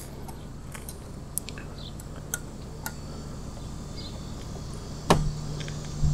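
Small scattered metal clicks of a set screw being turned with a thin key in a motorcycle kickstand pad, with a louder sharp click about five seconds in, followed by a low steady hum.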